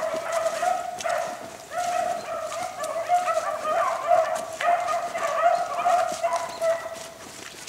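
A pack of beagles baying steadily in overlapping calls while running a rabbit's track: the hounds giving tongue on the scent during the chase. The calls fade a little near the end.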